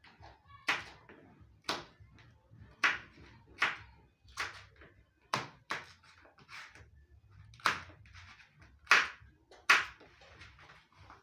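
Knife slicing through okra pods, each cut ending in a sharp tap of the blade against the bowl beneath, about once a second at an uneven pace.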